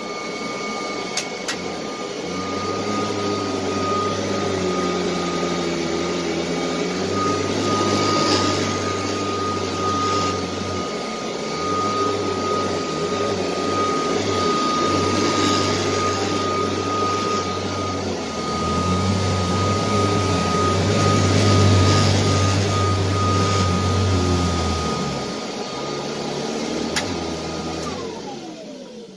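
Kirby Heritage 2 upright vacuum running with a steady high motor whine while it is pushed back and forth over carpet, a deeper hum coming and going with the strokes. Near the end it is switched off and the whine falls in pitch as the motor winds down.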